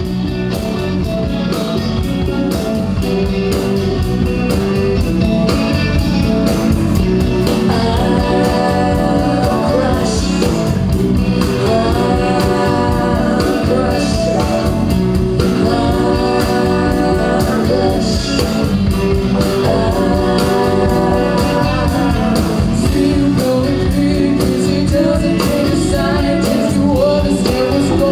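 Live band playing a pop-rock song: a woman sings lead over electric guitars and a drum kit, her voice standing out more from about eight seconds in.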